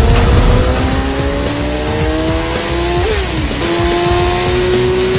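BMW S 1000 RR inline-four engine accelerating hard through the gears. Its pitch climbs steadily, drops sharply at an upshift about three seconds in, then climbs again. Music plays underneath.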